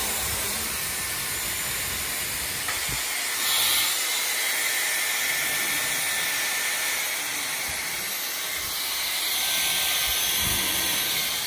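Dyson hair styler running, its motor blowing a steady rush of air with a faint high whine, swelling briefly about a third of the way in. It is running on sagging mains voltage of about 190 V, which the owner blames for it cutting out.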